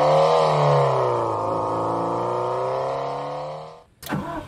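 Homemade optical engine-sound simulator imitating a Subaru EJ20 flat-four with equal-length exhaust, as heard from inside the cabin. It revs up to a peak about half a second in, settles back to a steady mid-rev run, and fades out. About four seconds in, a short clattering burst starts the simulated engine start with starter cranking.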